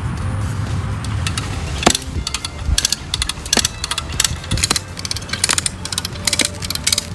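Firewood processing machinery running with a steady low engine rumble; about two seconds in, a sharp knock is followed by rapid, irregular clattering and knocking.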